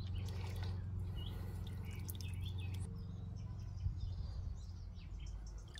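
Water dripping and lightly splashing as a hand works through pond weed in a garden pond, with faint bird chirps early on and a steady low rumble underneath.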